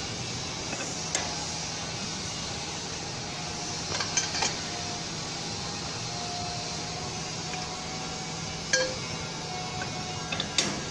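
Scattered sharp metallic clinks as a steel hex key and its pipe extension bar are set into and knock against the socket-head bolts holding a stationary blade, over a steady background hum. There is a small cluster about four seconds in, and the loudest clinks come near the end.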